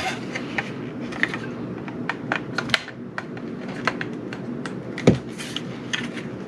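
LIFX Beam plastic light bars and corner piece clicking and tapping against each other as they are handled and their magnetized ends are fitted together: scattered light clicks, with one louder knock about five seconds in.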